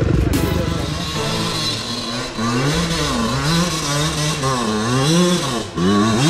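Enduro dirt bike engine revving up and down over and over, its pitch rising and falling several times, then climbing sharply near the end.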